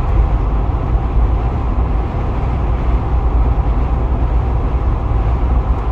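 Steady road noise inside a car's cabin at highway speed: a constant low rumble of tyres and engine.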